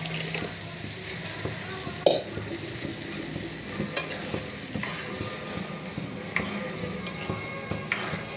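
Mashed dal poured into simmering sambar, then a steel ladle stirring it in the pan over a steady sizzle. The ladle knocks against the pan a few times, loudest about two seconds in.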